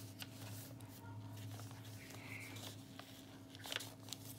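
Faint rustling and rubbing of paper as the pages and tags of a handmade paper junk journal are turned and handled, with a few soft clicks, the clearest near the end, over a steady low hum.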